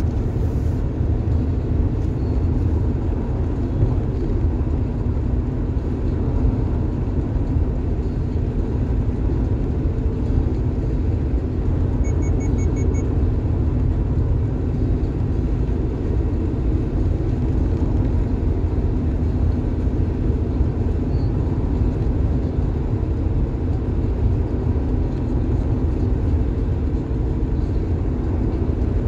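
Steady road noise inside a car's cabin at highway speed: a low, even rumble of tyres and engine.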